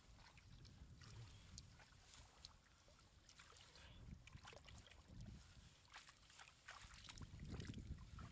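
Faint sloshing and small splashes of shallow muddy water as hands grab at a fish, over a low rumble that grows louder near the end.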